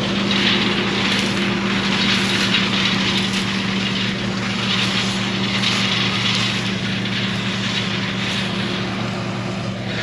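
Farm machinery diesel engine running steadily with a low, even hum, under a hiss that swells and fades every second or so.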